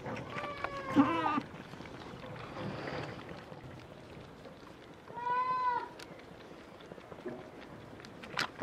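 Miniature goats bleating: two high, wavering bleats, each about a second long, one near the start and one about five seconds in.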